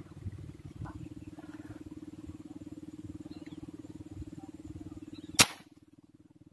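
A single sharp shot from a fishing airgun about five seconds in, over a steady low hum.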